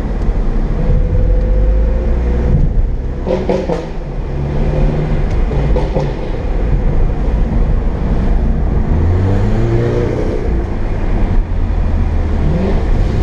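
Car engine and road noise heard from inside the cabin while driving: a steady low rumble, with the engine note rising under acceleration twice in the second half.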